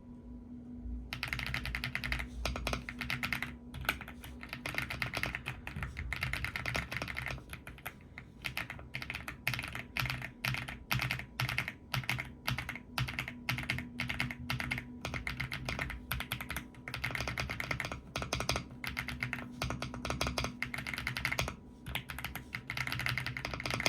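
Fast continuous typing on a stock Aula F75 mechanical keyboard with Akko Creamy Yellow V3 Pro linear switches: rapid irregular key clacks, broken by a couple of brief pauses.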